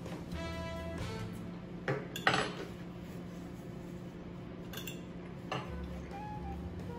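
A metal fork clinking against a plate a few times, the loudest clink about two seconds in and lighter ones later, over soft background music.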